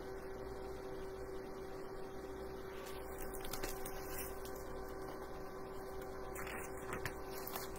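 Quiet room tone with a steady electrical hum and a few faint clicks.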